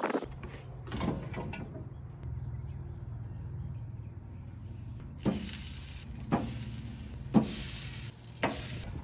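Pellet grill's fan motor humming steadily. About five seconds in, a hiss of meat sizzling on the hot grates comes in, with four sharp knocks about a second apart.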